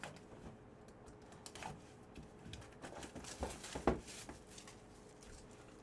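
Faint rustling, tearing and tapping of trading-card packaging being opened by hand, with a louder burst of rustling about three and a half to four seconds in.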